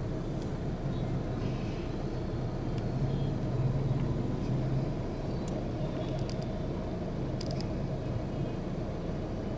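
Slow, congested city road traffic: the engines of auto-rickshaws, cars and motorbikes idling and creeping along in a steady low rumble. A few short clicks come in the second half.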